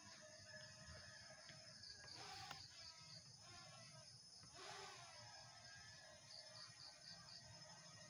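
Near silence: faint outdoor ambience with a faint high chirping, about four chirps a second, that comes and goes.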